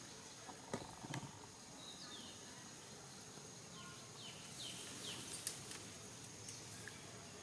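Faint outdoor ambience: a steady high insect drone with a few short falling chirps, and a handful of sharp clicks, the loudest about a second in and about five and a half seconds in.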